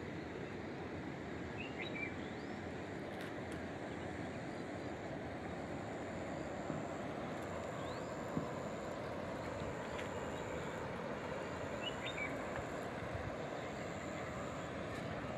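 Steady outdoor background noise with a few faint, short bird chirps, about two seconds in and again near twelve seconds.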